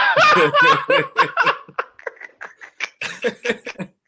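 A man laughing hard in quick, repeated bursts, in two spells: one over the first couple of seconds and another about three seconds in.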